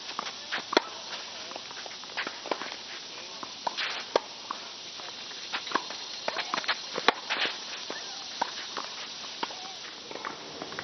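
A tennis rally: sharp, irregular pops of racquets striking the ball and the ball bouncing, mixed with footsteps and shoe scuffs on the court.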